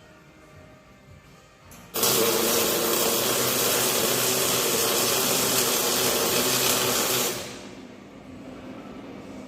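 Welding on a steel chassis frame: a steady, loud welding arc starts suddenly about two seconds in, runs for about five seconds, then stops, leaving a quieter background.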